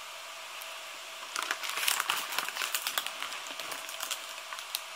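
Clear plastic food tray crinkling and crackling as it is handled, starting about a second and a half in.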